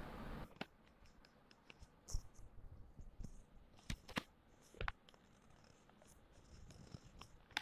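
Paper-craft handling sounds: a brief rustle at the start, then a few scattered light taps and clicks as a cut-out card lattice is handled and laid onto a glitter foam sheet on a plastic sheet.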